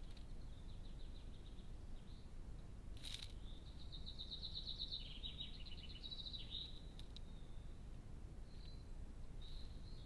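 A songbird singing faintly: high, thin phrases with fast trills, busiest from about four to seven seconds in, over a low steady background rumble. One sharp click about three seconds in.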